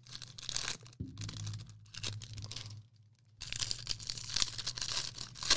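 Trading-card pack wrappers being torn open and crinkled by hand, in rustling bursts with a short pause about three seconds in.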